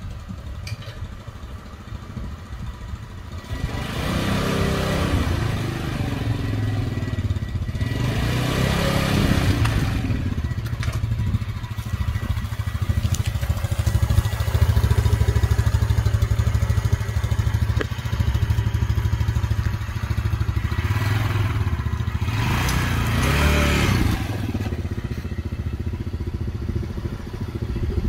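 Quad ATV engine running as it is ridden, swelling up and easing off three times as the throttle is opened.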